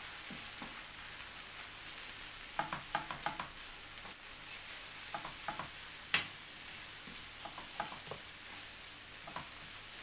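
Minced meat (kefta) and diced peppers sizzling in a non-stick frying pan while a wooden spatula stirs them, scraping and tapping against the pan in short irregular clusters, with one sharper knock about six seconds in.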